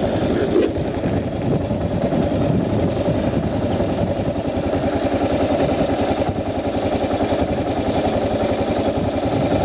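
Motorcycle engine idling steadily with a fast, even pulse.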